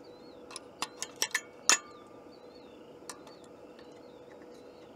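Sharp metal clicks and clinks of a butane canister being lined up and slotted into a portable butane stove: a quick run of clicks in the first two seconds, then one more about three seconds in.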